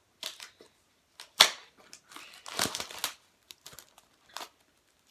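Packaging being crinkled and torn open by hand: a few short rustles, a sharp crackle about a second and a half in, then about a second of dense crinkling, with a few faint ticks near the end.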